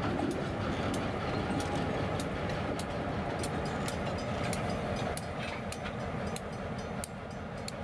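Diesel switching locomotives moving slowly, engines running with a steady low rumble, and frequent sharp metallic clicks several times a second.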